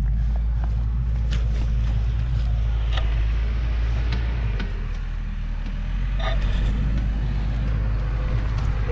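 Engine running steadily with a deep drone, and a few light clicks and knocks over it.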